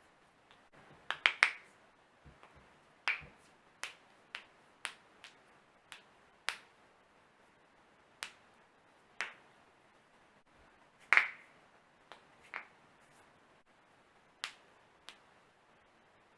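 A person cracking their own joints: a run of sharp, irregularly spaced pops, some coming in quick clusters, the loudest about two-thirds of the way through.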